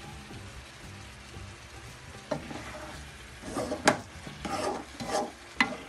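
Chicken drumsticks sizzling gently in a stone-coated nonstick pan, then from about two seconds in a wooden spoon stirring them, scraping and knocking against the pan, with the sharpest knocks near the middle and near the end.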